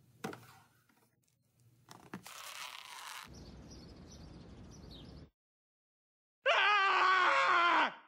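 A man's long, wavering yell, falling in pitch, lasting about a second and a half near the end. Before it come a soft hiss and a low, steady background noise.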